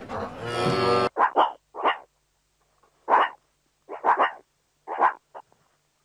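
Meerkat giving short, sharp barking calls, singly and in quick pairs, about a dozen in all, starting abruptly about a second in after a brief stretch of fuller, steadier sound.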